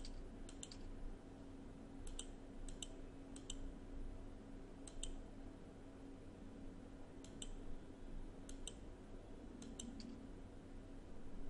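Computer mouse button clicks: a series of short sharp clicks, several in quick pairs, a second or two apart, over a faint steady hum.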